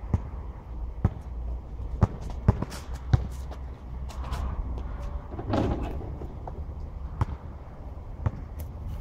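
A basketball bouncing on an outdoor asphalt court as it is dribbled: sharp single bounces about a second apart, with a louder, longer knock about five and a half seconds in.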